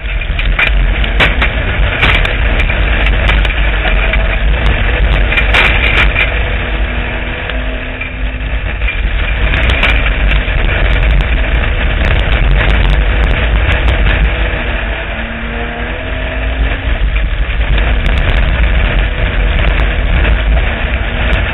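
Street stock race car at racing speed, heard from inside its stripped cabin: a loud engine rumble under heavy rattling and sharp clatter from the car's body. The sound eases briefly twice, about eight and sixteen seconds in.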